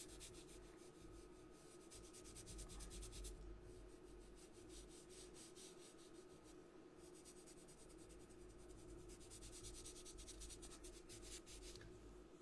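Faint rubbing of a sponge applicator blending black soft pastel into paper, a run of quick strokes that comes and goes with short pauses.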